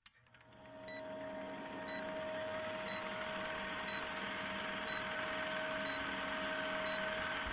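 Old-film countdown leader sound effect: a film projector's steady whirring clatter with a constant hum tone and a short tick about once a second. It fades in over the first second and cuts off abruptly at the end.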